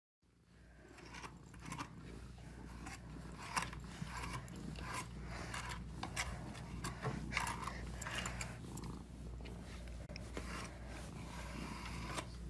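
Fine-wire slicker brush being stroked through a cat's fur: repeated short scratchy rasps, roughly one or two a second, over a steady low hum.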